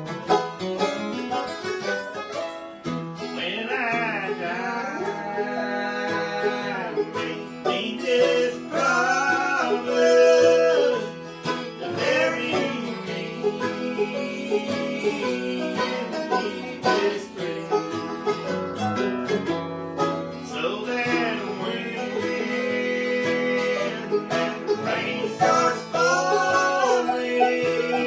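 Bluegrass music: banjo and guitar picking an instrumental break, with a lead melody whose notes bend and slide over a steady accompaniment.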